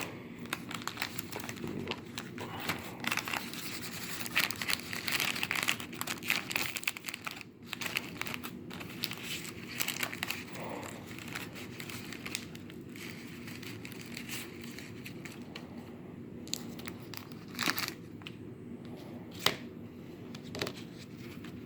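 Plastic candy wrapper crinkling and tearing as a pack of Reese's peanut butter cups is unwrapped, busiest in the first half and then quieter handling with a couple of sharp clicks near the end.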